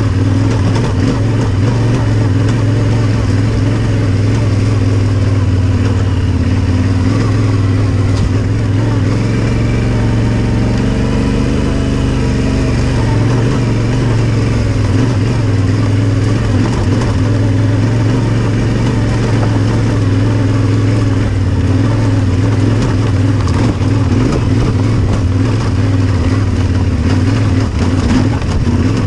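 Yamaha Ténéré 700's parallel-twin engine running steadily as the motorcycle rides a dirt trail, its note dipping slightly about ten seconds in.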